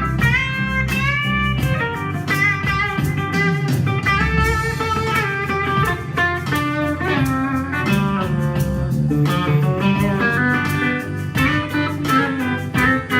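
Live band music in a slow soul-blues groove: bass and drums under a lead electric guitar playing bending, gliding notes.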